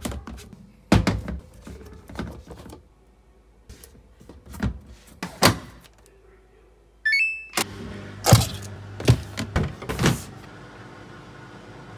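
Knocks and clatter of a plastic detergent bottle and drawer being handled on a front-loading washing machine. About seven seconds in, the machine plays a short run of electronic beeps as its button is pressed, and a steady hum follows as it starts, with more knocks from a plastic laundry basket being handled.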